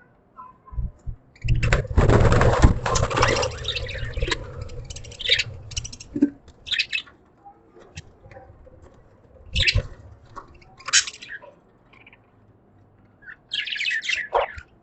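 Budgerigars chirping in short, scattered bursts, with a dense cluster of chirps near the end. About one and a half seconds in, a loud rustling noise lasts about two seconds and is the loudest sound.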